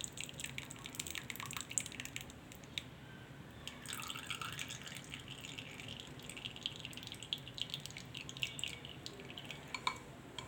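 Homemade cough syrup dripping and trickling through a strainer as it is strained, in many small, irregular drips.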